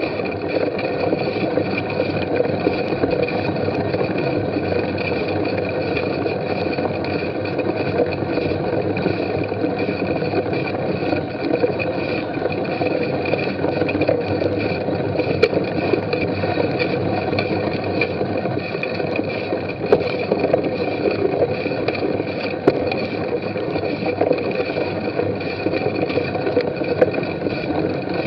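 Steady rolling and rattling noise of a bicycle ridden over a muddy grass course, picked up by a camera mounted on the rider or bike, with a few small knocks from bumps.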